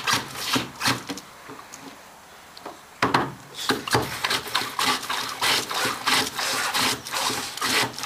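Hand pump being worked in quick rasping strokes, about three to four a second, sucking water out of a leaking float compartment through a tube to the bottom of the float's sump; the strokes pause for about two seconds early on, then resume.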